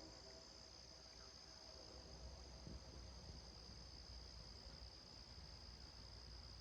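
Near silence with a faint, steady, high-pitched insect chorus, such as crickets, and a low background rumble.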